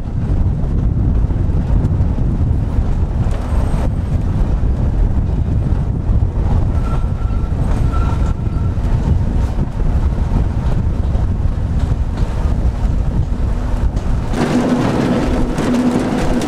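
Victorian electric tramcar running along the line: a loud, steady low rumble of the car on the rails, mixed with wind buffeting the microphone. About fourteen seconds in the sound changes to inside the car, where the rumble is lighter and a steady hum runs under it.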